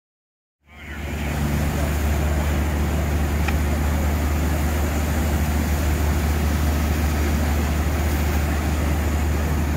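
Steady low drone of fire engines running at a working fire, with an even hiss over it; it fades in quickly under a second in and holds level.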